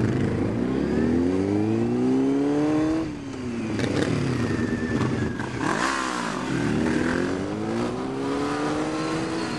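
Motorcycle engine revving under the stunt rider's throttle, its pitch climbing for about three seconds, dropping off suddenly, then rising again twice, with a couple of sharp clicks in the middle.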